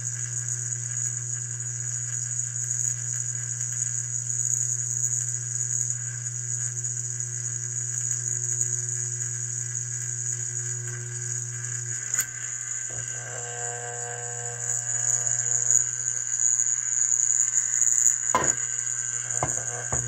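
Steady low electrical hum from a Hydrolevel VXT steam boiler water feeder on the bench while it is feeding. A click comes about twelve seconds in, after which the hum is weaker, and two sharp knocks come near the end.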